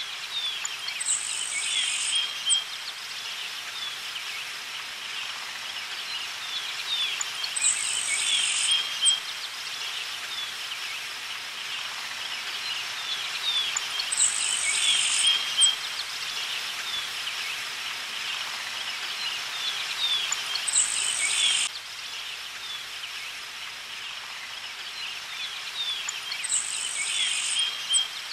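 A looped background soundtrack of high chirping sounds over a steady hiss. The same cluster of chirps comes back about every six and a half seconds.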